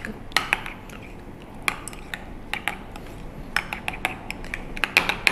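A metal spoon clinking against a glass bowl in irregular clicks as it stirs thick mayonnaise-based tartar sauce.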